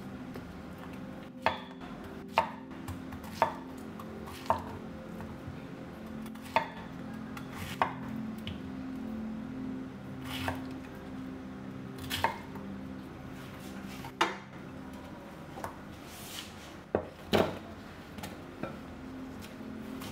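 Chef's knife cutting pineapple into chunks, each stroke ending in a sharp knock on a wooden cutting board. The knocks are irregular, a second or two apart, with two close together near the end.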